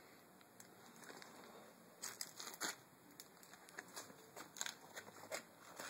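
Faint, scattered crackling and rustling over a quiet background, with sharper crackles coming more often from about two seconds in.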